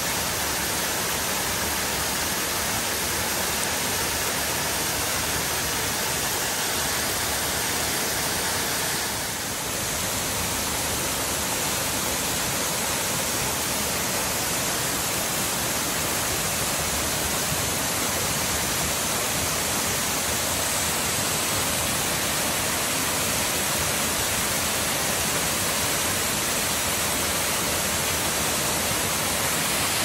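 Kanyu Falls, a tall waterfall in full flow, its falling water making a steady rushing noise. The sound briefly dips about nine seconds in, then carries on unchanged.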